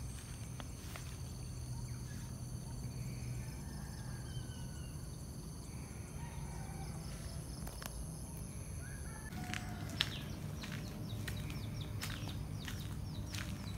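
Countryside ambience: a steady high-pitched insect drone over a low rumble, with a few short bird calls. About nine seconds in the drone cuts off, and irregular ticks and crunches of footsteps on gravel follow, with one sharp click a little later.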